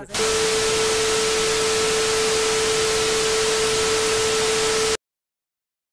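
Television static sound effect: a loud, steady hiss with a mid-pitched test tone under it, cutting off suddenly about five seconds in.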